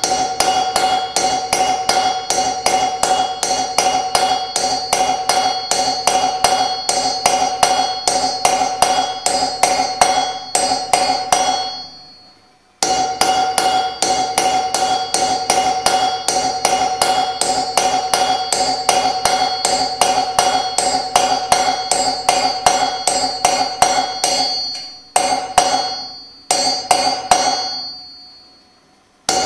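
Rapid, even hammer blows on a hand chisel, several a second, cutting rasp teeth one by one into a metal sheet wrapped on a metal cylinder; each blow sets the metal ringing with a steady tone. The tapping stops briefly about twelve seconds in and twice more near the end, the ringing dying away in each pause.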